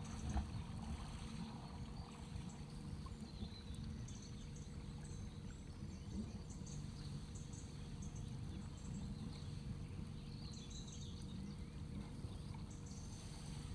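Boat engine running at low revs, a steady low rumble with a faint constant hum, as the boat motors slowly out of the marina. Faint high bird chirps come and go over it.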